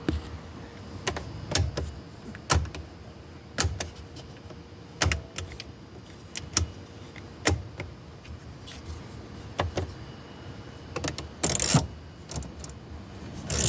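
The 1991 Subaru Loyale's dashboard switches clicking as they are flicked on and off, a long run of sharp clicks spaced irregularly at roughly one a second. About eleven and a half seconds in there is a brief half-second burst of mechanical noise.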